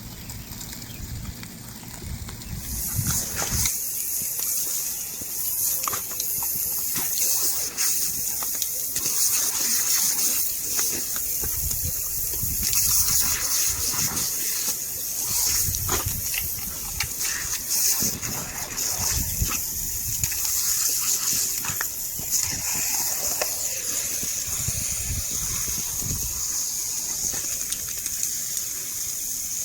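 Lawn sprinkler spraying water, a steady high hiss that sets in about three seconds in, with scattered low thumps and rustles beneath it.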